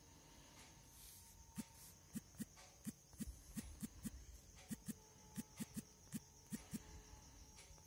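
A run of faint, uneven clicks or taps, roughly three a second, starting about a second and a half in and stopping near the end, over a faint steady high-pitched electrical whine.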